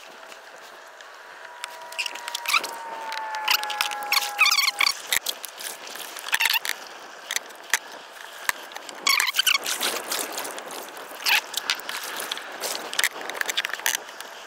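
Wire crab nets rattling, clicking and scraping as they are handled and baited. A thin, slowly falling tone sounds from about two to five seconds in.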